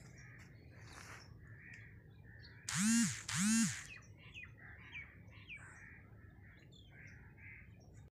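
Small birds chirping on and off over a low steady background hum. About three seconds in come two loud calls in quick succession, each rising and then falling in pitch.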